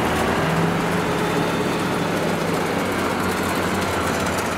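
Kubota DC70 rice combine harvester running steadily at work: a loud, even drone of engine and threshing machinery with a steady low hum.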